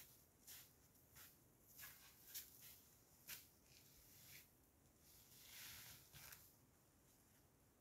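Faint, irregular crunching steps in snow, with a longer soft rustle about five and a half seconds in.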